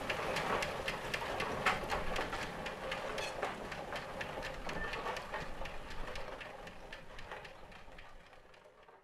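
Foster steam traction engine moving slowly, a regular run of sharp exhaust chuffs with the clatter of its motion and gearing. The sound fades away over the last few seconds.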